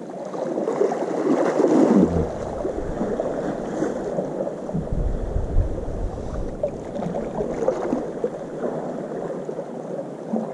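Sea water sloshing and lapping against the harbour edge, a continuous irregular splashing. A low rumble on the microphone comes in suddenly about two seconds in and fades out after several seconds.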